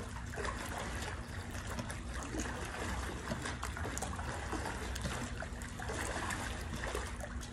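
Pool water splashing and churning steadily as a person kicks their legs at the surface, with a faint steady hum underneath.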